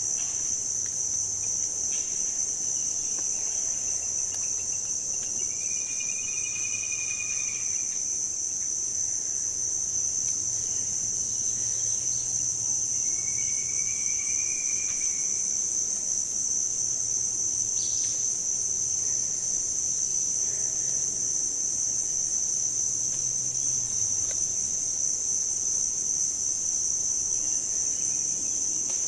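Steady, high-pitched insect chorus droning without a break, with two faint short whistled notes, about six and thirteen seconds in.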